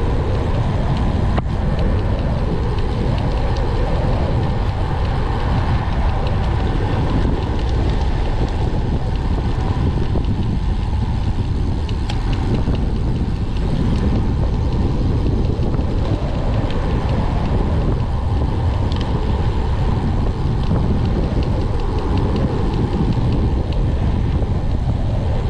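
Steady, loud wind noise buffeting the microphone of a camera on a road bike moving at speed.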